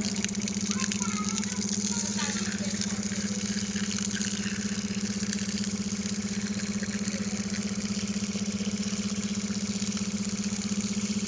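Electric water pump motor running with a steady hum and a fast, even pulsing.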